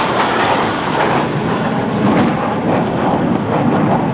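Jet noise from F-16 Fighting Falcon fighters flying past in formation: a steady, even rushing sound.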